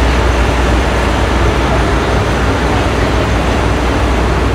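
Tea-processing machinery running steadily: the conveyor and processing machines give a constant loud mechanical noise over a deep hum.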